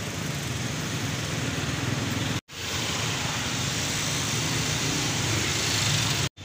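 Street ambience: a steady wash of traffic noise, cut off completely for an instant twice, about two and a half seconds in and near the end.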